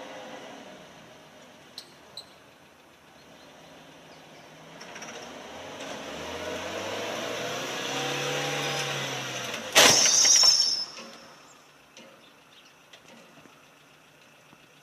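Car engine running and rising in pitch as it speeds up. About ten seconds in comes a sudden loud crash of a road collision, with a high clatter of breaking glass that dies away over about a second.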